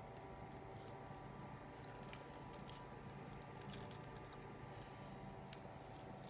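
Small metal charms and jewellery chain clinking lightly as they are handled, in a cluster of quick clinks a couple of seconds in, over a faint steady hum.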